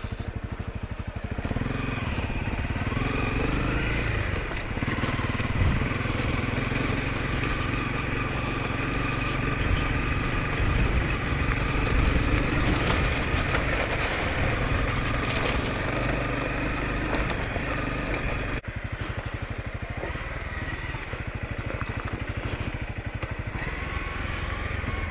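Honda CRF250L's single-cylinder four-stroke engine running as the bike is ridden over gravel and dirt, its pitch rising as it pulls away about a second in, then holding steady; tyres crunching on loose gravel under it.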